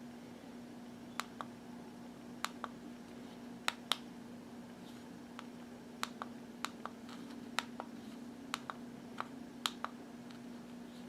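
Small plastic buttons on a Unication NP88 numeric pager being pressed to set the alarm: a string of short, sharp clicks, many in quick pairs, over a steady low hum.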